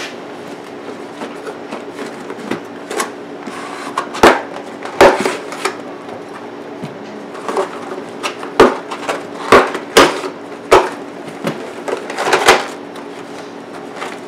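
Packaging being handled: a cardboard box opened and LED light strips in plastic tubes taken out and set down. The sound is irregular sharp knocks and clacks, the loudest about four and five seconds in and a cluster between about eight and twelve seconds, with rustling between them.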